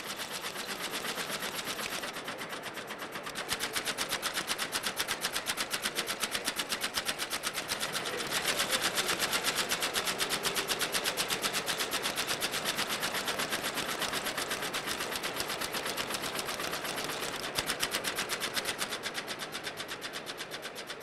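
Split-flap departure board flipping: a rapid, continuous clatter of flaps as the rows change over. It eases briefly a couple of seconds in and is loudest in the middle.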